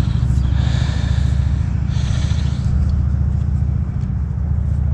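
Steady low rumble of road traffic, loud, with a higher tyre-like hiss that swells and fades three times in the first three seconds.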